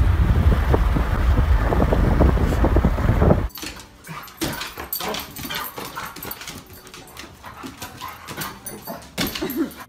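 Wind rushing and buffeting past an open car window while driving, loud and low, for about three and a half seconds. It cuts off suddenly, and quieter sounds follow: scattered clicks and taps and a dog's short whimper near the end.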